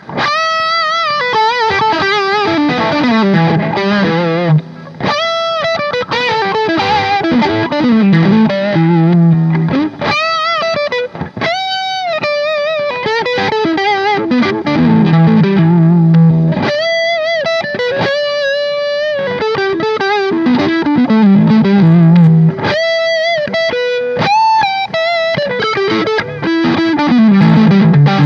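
Yamaha Pacifica electric guitar with upgraded pickups playing single-note lead lines: held notes with vibrato alternating with runs that step down to low notes, through a lightly distorted amp tone.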